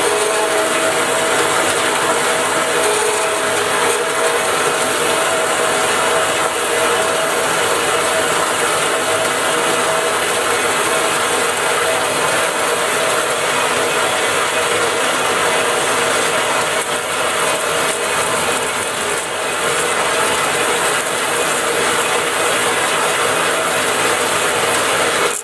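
Harbor Freight metal-cutting band saw running with its blade cutting through a bar of 1018 mild cold-rolled steel: a steady, loud mechanical run with a constant hum under it.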